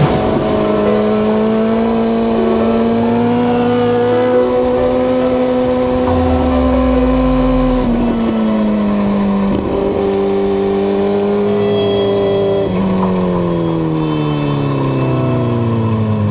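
Sport motorcycle engine running at high revs under load, its pitch held nearly steady, dipping about eight seconds in and climbing back, then falling steadily over the last few seconds as the revs wind down.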